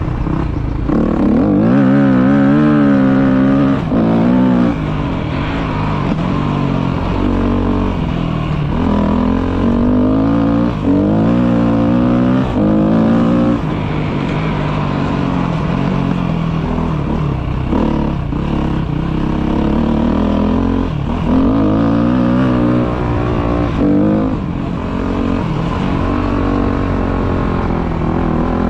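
Trail motorcycle engine under way, revving up and falling back again and again, with brief breaks in the sound as the rider shifts gears.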